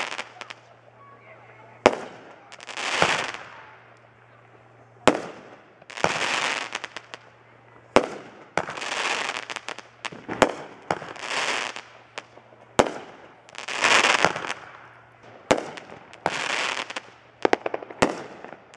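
Aerial fireworks going off one after another: a sharp bang about every two to three seconds, each followed by roughly a second of hissing crackle.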